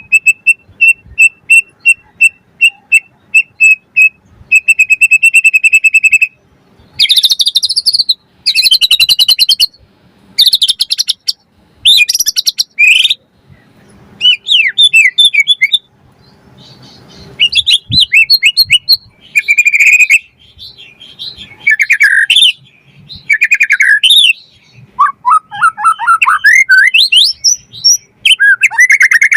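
White-rumped shama (murai batu) singing loudly. It opens with a fast, even run of repeated notes for about six seconds, then moves into varied phrases of whistles, quick note runs and rising sweeps, with short pauses between them.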